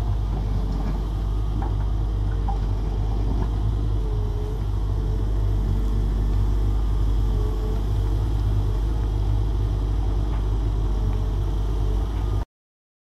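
Volvo EW140D wheeled excavator's diesel engine running steadily, with a faint hydraulic whine that dips and rises as the bucket is worked, and a few light ticks. The sound cuts off abruptly near the end.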